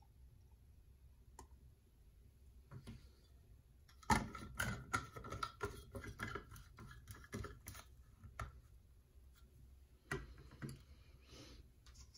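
Plastic sprayer head being twisted onto an O3 Waterworks spray bottle, giving a quick run of small clicks and knocks for about four seconds. About ten seconds in there is a single knock as the bottle is set down on its base.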